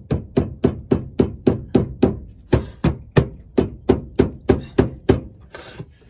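Rapid hammer blows on a 1999 Chevrolet Tahoe's inner tie rod, about four strikes a second, to jar the stuck joint loose with vibration. The strikes are sharp, with one short pause near the middle, and they stop shortly before the end.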